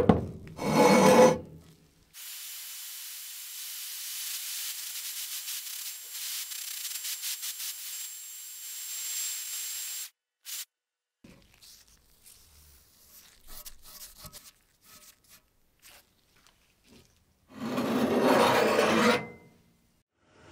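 Abrasive rubbing and scraping on the rusty steel cleaver blade. A short burst of rubbing comes first, then a steady hissing scrape for about eight seconds. Scattered light clicks and scrapes follow, and a loud two-second burst of rubbing comes near the end.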